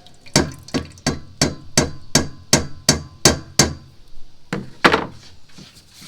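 A rhythmic series of sharp taps or knocks, about three a second, nine in a row, then two more after a short pause.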